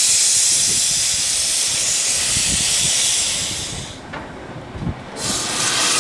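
Small saddle-tank steam locomotive venting steam with a loud hiss. The hiss cuts off about four seconds in and starts again about a second later.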